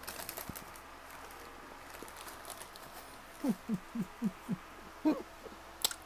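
A woman's voice making a quick run of five short, low sounds, each dropping in pitch, about four a second, then one more a moment later. Faint mouth clicks at the start and a sharp click just before the end.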